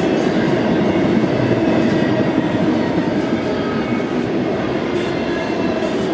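Double-stack intermodal freight cars rolling past, a steady loud rumble and rattle of steel wheels on the rails with faint high squealing tones above it.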